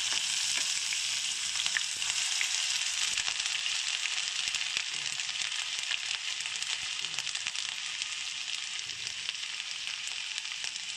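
Crushed ginger and garlic sizzling in hot coconut oil in a pan: a dense frying hiss full of small pops, gradually quietening.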